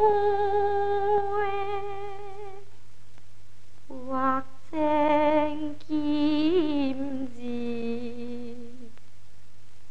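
Teochew opera music: a slow melody of long held notes with a wavering vibrato, broken by short pauses. A steady low hum runs underneath.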